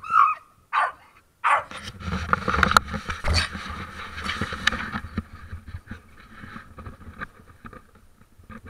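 Staffordshire Bull Terrier barking three short times in quick succession, the last bark falling in pitch, followed by several seconds of rustling, scuffing and knocks as the camera and bike gear are handled.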